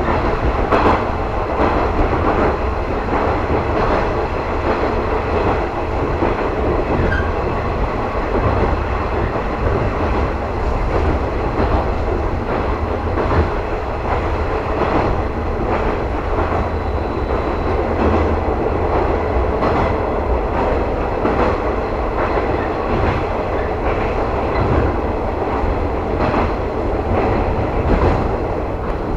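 JR West 115 series electric train running at speed, heard from inside its KuHa 115 driving car: a steady low rumble with the wheels clacking over rail joints.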